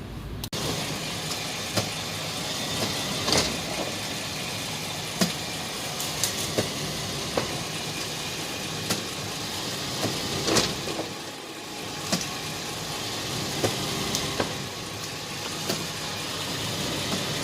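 Toyota Prado 120's 4.0-litre V6 engine idling steadily, with scattered sharp clicks and knocks every second or two.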